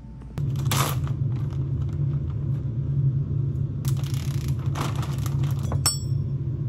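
Clear plastic bread bag crinkling and rustling in several short bursts as it is opened and handled, over a steady low machinery hum; a brief ringing clink near the end.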